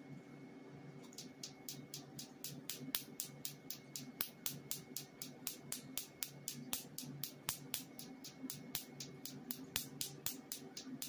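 Q-switched Nd:YAG picosecond laser handpiece pulsing on tattooed skin: a rapid, even train of sharp snapping clicks, about four a second, starting about a second in, over a steady low hum.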